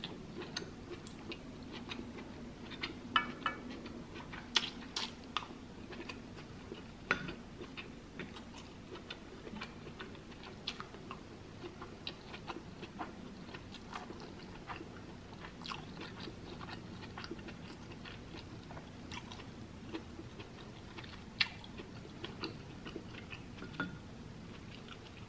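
A person chewing mouthfuls of soft food with lips closed, with scattered small clicks and smacks.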